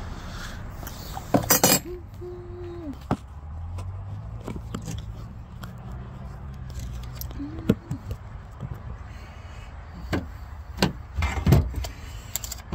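Hand tools, a metal speed square and tape measure, being handled and set down on a plywood sheet: scattered clinks and clattering knocks, loudest about a second and a half in and in a cluster near the end, over a low steady rumble.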